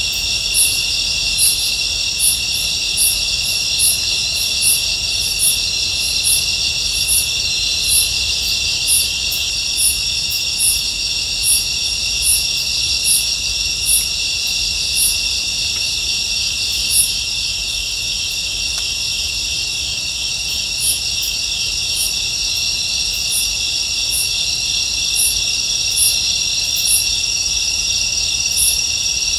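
Night insects chirping: a dense, steady cricket chorus, with a higher single chirp repeating about once a second that stops for a few seconds around the middle.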